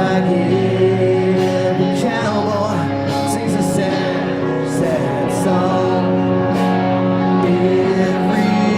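Rock music playing, with a voice singing over guitar and drums.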